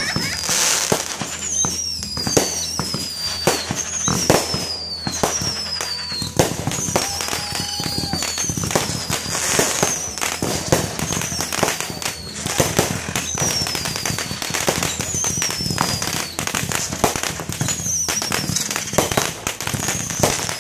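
Aerial fireworks bursting in quick succession: dense bangs and crackling from shells and stars. A high whistle falls in pitch again and again, every second or two.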